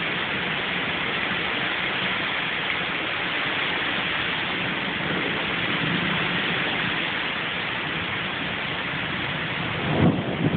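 Steady hiss of rain in a thunderstorm. A louder burst of thunder breaks in near the end.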